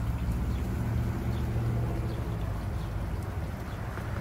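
A steady low engine hum, like a motor idling, strongest for the first two seconds and easing off after.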